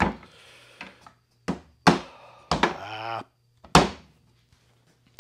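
A black rubber-headed mallet knocking wooden beehive frame parts together in a frame jig: about half a dozen sharp thunks at uneven intervals.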